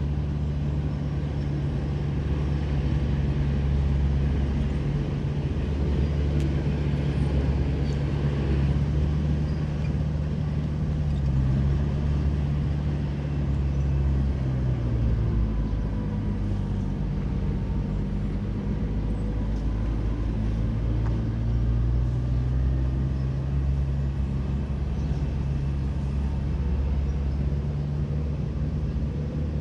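Heavy construction machinery's diesel engine running steadily. Its pitch dips around the middle and then climbs again as the engine speed changes under load.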